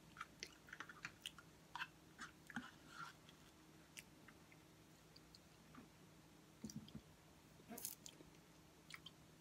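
Faint eating sounds from someone taking spoonfuls of pudding: wet mouth smacks and small clicks, a quick run of them in the first three seconds and a few more later, over a faint steady low hum.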